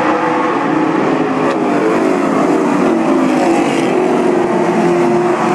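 Several race car engines running at once, a steady loud drone of overlapping engine notes that rise and fall a little.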